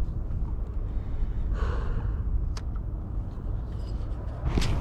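Wind rumbling on the microphone, with a breath about a second and a half in, a sharp click about a second later and a short rush of noise near the end.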